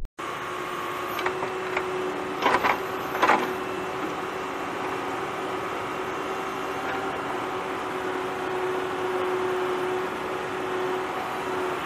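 JCB 3DX backhoe loader's diesel engine running steadily with a held whine while it digs and swings its bucket. A few loud knocks come about two and a half to three and a half seconds in.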